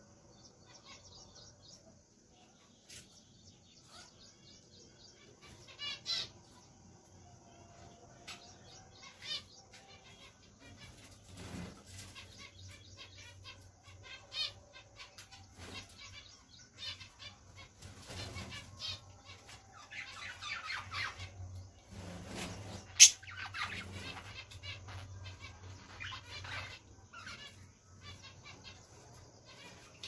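Pet budgerigars giving short, scattered chirps and chatter, with bursts of wing fluttering, busier in the second half. One sharp, loud snap a little past two-thirds of the way through.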